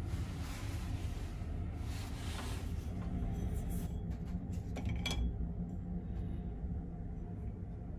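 A toothbrush cup being handled in its metal holder, with a few light clicks and a clink about five seconds in, over a steady low hum.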